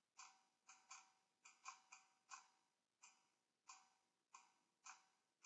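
Faint computer mouse clicks: about a dozen short, sharp clicks at an uneven pace, each dying away quickly, as vertices are selected and dragged.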